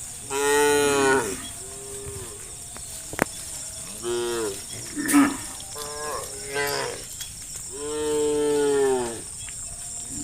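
Cows mooing: about six moos at different pitches, one after another, the last one long and drawn out. A single sharp click comes about three seconds in.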